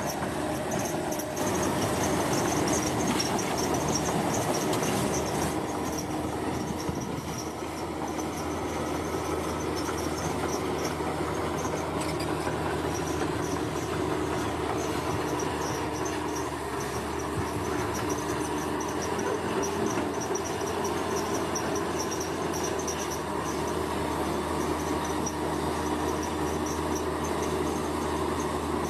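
Heavy construction machinery running with a steady, unbroken engine drone, with a faint fast high pulsing above it.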